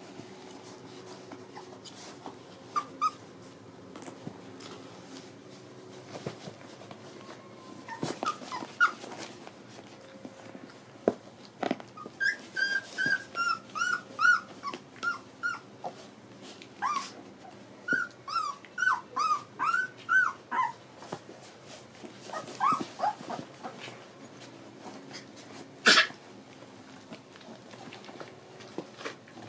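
Young Labrador puppies whining and whimpering in a run of short, high calls that rise and fall, several a second, clustered in the middle of the stretch. A few sharp knocks are scattered through it, the loudest near the end.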